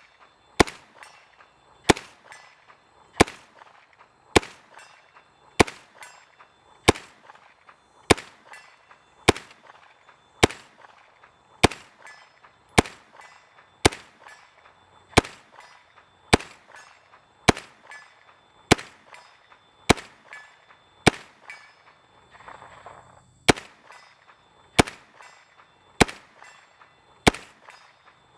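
A 10mm CMMG Banshee MK10 braced pistol with an 8-inch barrel fired in slow, evenly paced semi-automatic shots, a little over a second apart. There are about two dozen sharp reports in all, with one slightly longer pause between shots about 22 seconds in.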